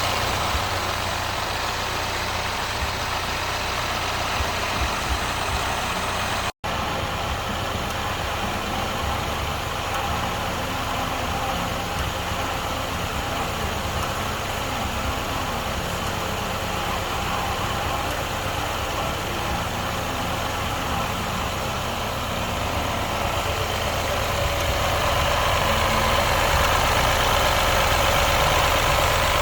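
2015 BMW engine idling steadily, with a momentary cut to silence about six and a half seconds in and a slight rise in level near the end.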